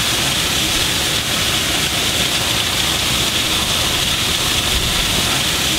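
Plaza fountain's water jets splashing steadily into the basin, an even hiss of falling water.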